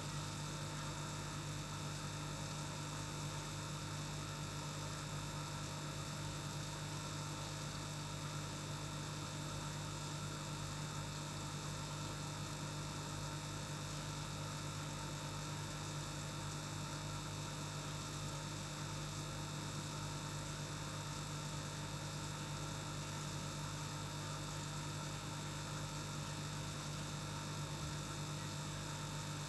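Steady low electric hum over a faint even hiss, from the tank's aquarium air pump.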